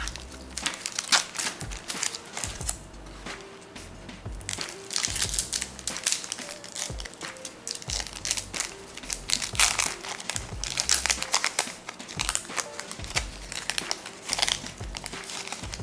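Foil trading-card pack wrapper crinkling as it is torn open by hand and the cards are pulled out, in bursts about a second in, around five seconds, from ten to eleven seconds and near the end. Soft background music runs underneath.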